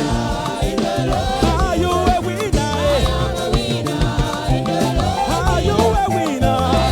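Live church praise music: a band playing an upbeat, danceable rhythm with bass and percussion, with voices singing the melody.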